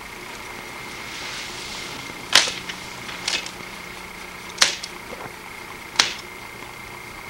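Typewriter keys struck one at a time, a sharp clack roughly every second and a bit, slow and uneven. Paper rustles faintly just before the first stroke.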